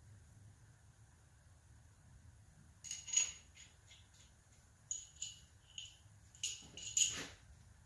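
Loose steel hardware clinking against metal with a bright ring: about ten light clinks in bursts, starting about three seconds in, the loudest near the start and near the end.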